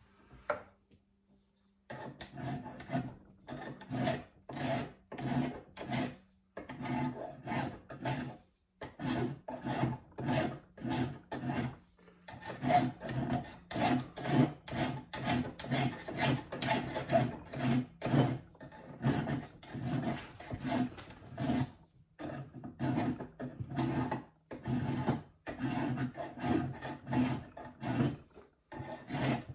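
Hand file cutting a small piece of brass clamped in a bench vise, shaping it into a wedge: quick, even rasping strokes, about two a second, starting about two seconds in and broken by a few short pauses.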